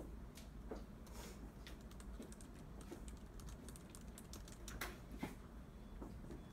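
Scattered light clicks and taps from students working quietly at their desks, over a low steady hum. A louder pair of clicks comes about five seconds in.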